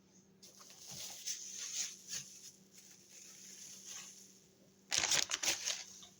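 Plastic packaging crinkling and rustling as impact sockets and accessories are handled and unpacked, with a short burst of sharp clicks and rattles about five seconds in.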